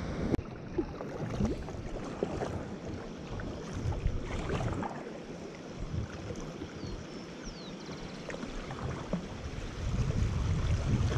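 River water rushing and splashing around a moving kayak, with scattered small splashes. A low rumble swells near the end.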